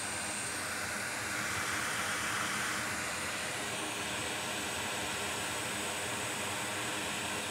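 Steady rushing hiss of air from a hot air rework station, used to reflow a flux-covered area of a MacBook logic board. It swells slightly about one to three seconds in.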